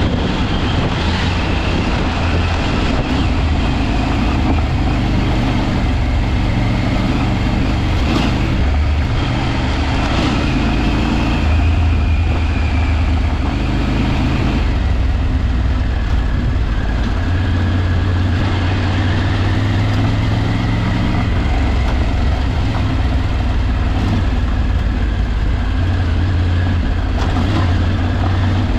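A vehicle's engine running on the move, a steady low drone whose pitch rises and falls a little now and then.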